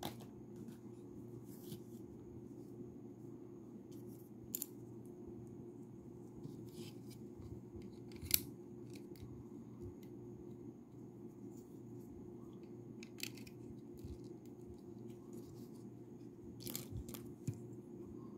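Plastic Lego bricks being handled and pressed together: scattered sharp clicks and snaps, the loudest about eight seconds in, over a steady low hum.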